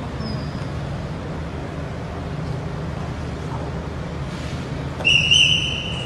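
Steady low rumble of an idling car at the entrance; about five seconds in, a shrill whistle-like blast lasting about a second rises above it as the loudest sound.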